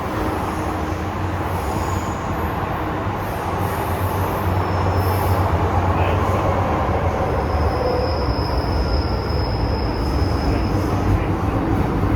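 MTR M-Train metro car running through a tunnel, heard from inside the car: a steady rumble of wheels and running gear, with a thin high wheel squeal from about seven to eleven seconds in.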